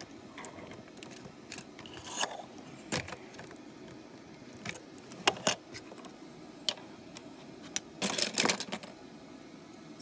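Plastic LEGO pieces clicking and rattling as a LEGO train locomotive's body is handled and fitted: scattered sharp clicks, with a busier clatter about eight seconds in.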